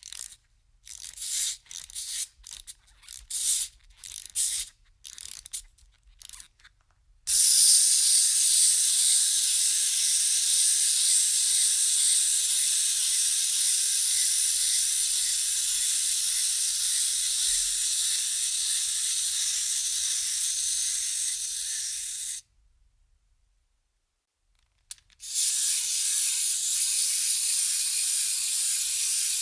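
Aerosol spray paint can spraying: a quick string of short bursts, then a long continuous spray that stops suddenly, and after a gap of a couple of seconds a second long spray.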